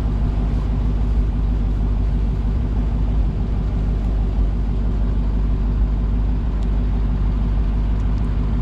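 A car engine idling steadily with a low, even rumble.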